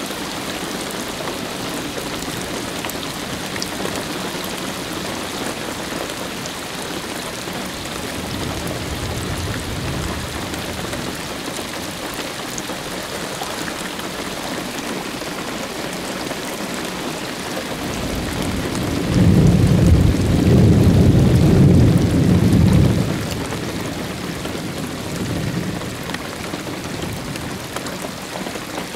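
Steady rain falling through a thunderstorm, with a long roll of thunder a little past the middle that swells and fades over about five seconds. Fainter rumbles come earlier and near the end.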